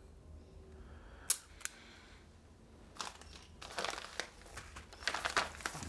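Plastic bubble wrap rustling and crinkling as it is handled, growing busier over the last few seconds. Two light clicks come a little over a second in.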